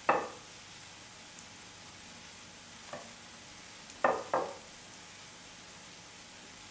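Butter sizzling in short bursts as halved burger buns are laid cut-side down and pressed onto a hot buttered nonstick tawa: one right at the start, a faint one about three seconds in, and two close together about four seconds in.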